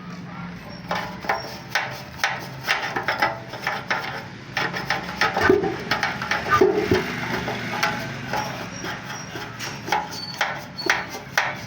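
Irregular knocking and clattering of hand work on a motorcycle's steel fuel tank, several knocks a second for most of the stretch.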